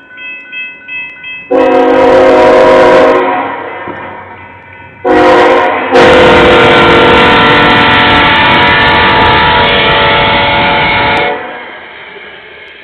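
A locomotive's multi-note air horn blowing a grade-crossing signal. A long blast comes about 1.5 s in, a short blast around 5 s, and a final long blast is held for about five seconds. This is the long, long, short, long pattern, with its first long blast just before.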